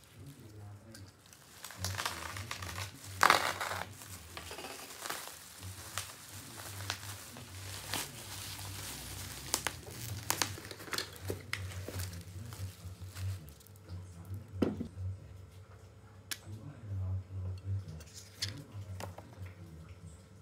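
Black plastic bubble-wrap mailer crinkling and tearing as a parcel is opened and its contents pulled out, with scattered sharp crackles, loudest about two to four seconds in.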